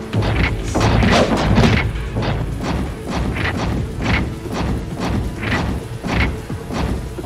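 Action-film sound effects of booms and crashing impacts, about one hit every second or less, over background music.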